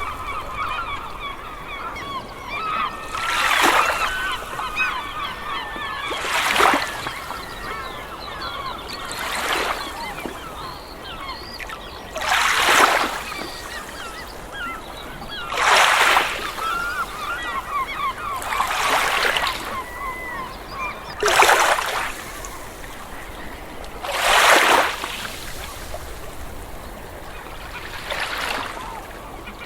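A flock of waterfowl honking and calling continuously, many birds overlapping, with a rushing swell of noise about every three seconds.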